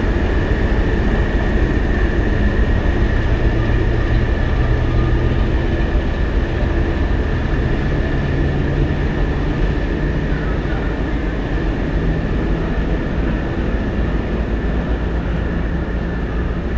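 Diesel shunting locomotive running as it moves slowly past with its coaches: a steady, loud engine rumble whose note rises a little about two-thirds of the way through, with a steady high whine over it.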